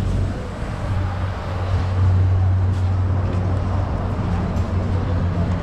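A steady low hum of a running motor, over an even wash of noise.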